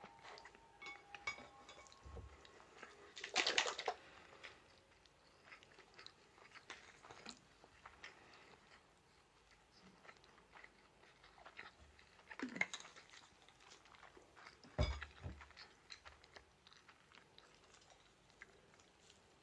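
Close-up eating sounds: chewing and crunching on fried chicken, with scattered small clicks of chopsticks against dishes and a few louder knocks.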